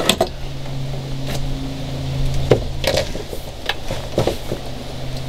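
Scattered clicks and knocks, about half a dozen, from hands handling wiring cables and plastic fittings at an outboard motor's cowling, over a steady low hum.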